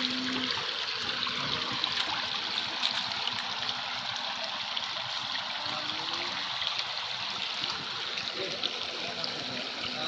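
Fiberglass Buddha garden fountain running, with water trickling and splashing steadily into its pool.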